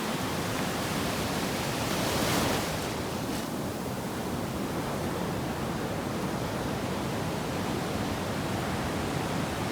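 Sea surf washing on a sandy beach: a steady rush of waves, with one wave breaking louder about two seconds in.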